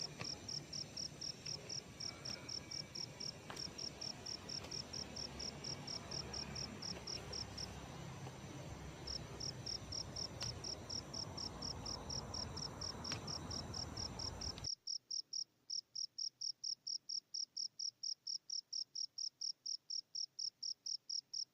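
A cricket chirping in a steady, even pulse, several high chirps a second, with a brief pause about eight seconds in. Low background noise underneath cuts off abruptly about fifteen seconds in, leaving the chirping alone.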